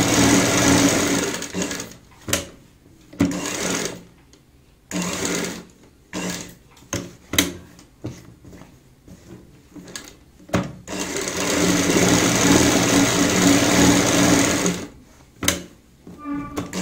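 Sewing machine running to stitch straight seams along marked lines in fabric, in short runs and two longer runs of a couple of seconds and about four seconds, stopping and starting with sharp clicks in the pauses as the fabric is repositioned.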